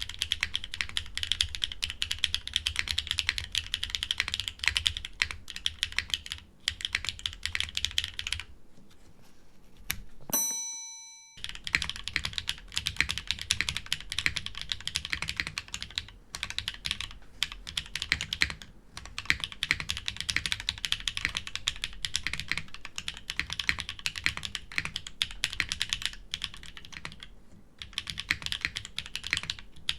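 Fast typing on an Ophanim custom mechanical keyboard: a dense, continuous run of key clacks. It thins out about nine seconds in. A single ringing ding then sounds and fades over about a second, and the typing starts again.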